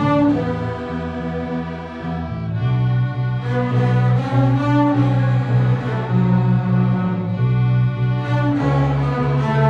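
Student string orchestra playing together: cellos and violins bowing sustained notes, the low cello line strongest and moving to a new pitch every second or two.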